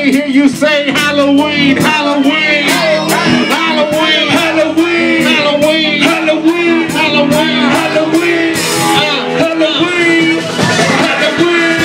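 Loud music with a melody line running over it.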